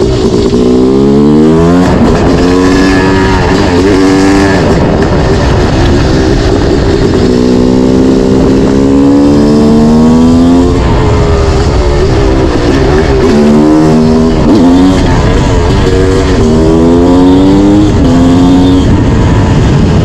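Yamaha YZ250 two-stroke single-cylinder engine running loud under hard acceleration, its pitch rising about five times and dropping back between climbs as the rider works through the gears.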